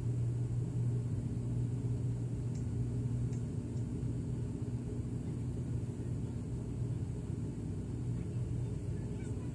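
Cabin drone of an ATR 42's twin turboprop engines and propellers in the climb after takeoff: a steady low hum with a strong propeller tone over a rumble, heard from inside the cabin.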